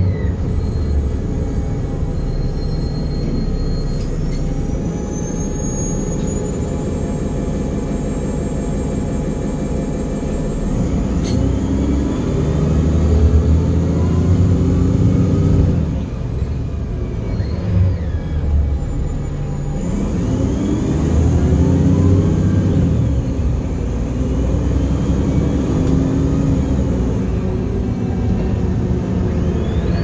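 City bus ride heard from inside: the bus's engine and road rumble run throughout, with the engine note climbing and easing off as the bus pulls ahead, once about halfway in and again about two-thirds of the way through. A thin whine slides up and down in pitch above the rumble.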